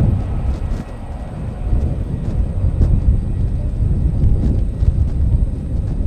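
Low rumble of a distant Airbus A321neo jet airliner climbing away on a go-around, swelling and fading in gusts, mixed with wind buffeting the microphone.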